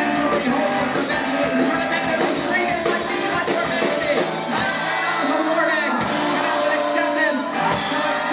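Live rock band playing: a man singing into the microphone over electric guitar, bass and drums.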